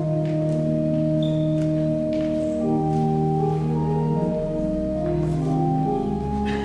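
Church organ playing slow, sustained chords that change every second or two.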